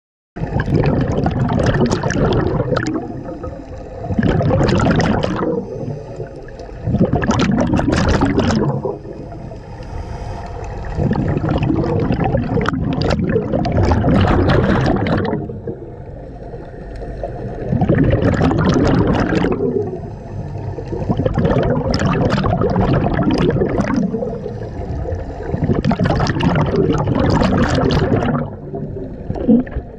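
Scuba diver breathing underwater through a regulator: exhaled bubbles gurgling in loud bursts every few seconds, with quieter inhalations between. The sound starts suddenly just after the beginning.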